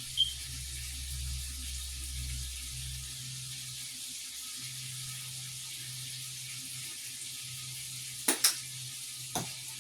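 Food frying in a pan, a steady sizzle, with a few sharp knocks near the end.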